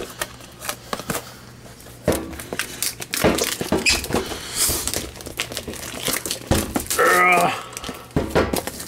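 Plastic seal wrap on a boxed set being crinkled and torn off by hand: a fast, irregular run of crackles and rips, with a brief wavering pitched sound about seven seconds in.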